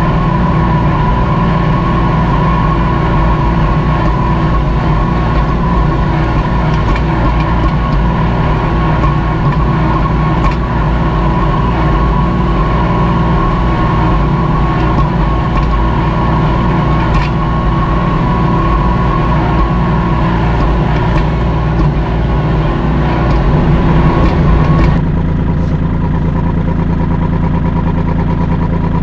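Kubota L2501 tractor's three-cylinder diesel engine running steadily under load while pulling a disc harrow through grassy ground, with occasional clicks. About 25 seconds in, the sound changes abruptly to a steadier, lower engine idle.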